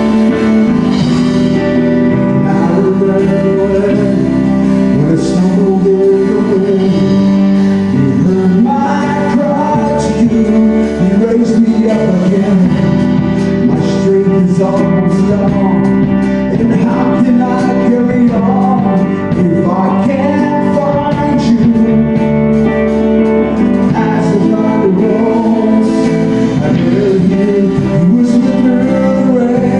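Gospel worship song played by a small band: guitars and bass with singing over them.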